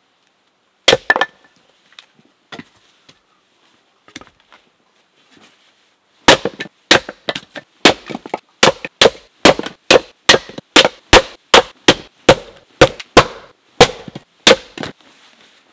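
Axe splitting firewood on a wooden chopping block: a sharp double crack about a second in, then from the middle on a fast run of sharp wooden knocks, three or four a second, as log after log splits.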